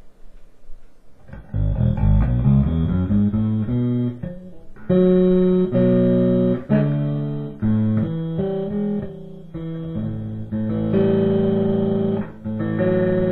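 Electric bass played through an 8 Bit Duck bit-crusher/sample-rate-reducer pedal into a bass amp: after about a second and a half of quiet, a quick run of plucked notes, then slower held notes and double stops with a gritty, crushed tone.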